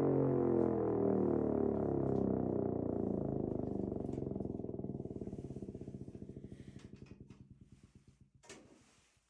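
DISA LS-8D air raid siren winding down at the end of its test run: its wail falls steadily in pitch and fades, breaking into a slowing flutter before dying away. A brief knock follows near the end.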